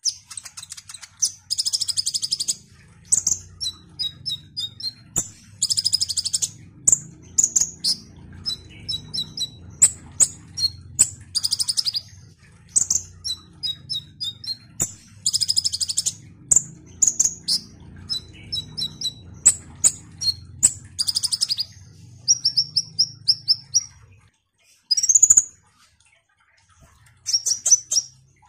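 A male kolibri ninja sunbird singing: fast, high twittering phrases of sharp chirps and buzzy trills, repeated one after another, with a short break near the end. A faint low hum runs underneath and stops a few seconds before the end.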